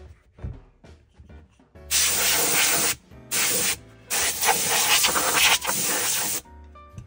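Canned-air duster blowing through its straw nozzle onto a suede loafer, in three hissing bursts: one of about a second, a short one, then a longer one of about two seconds.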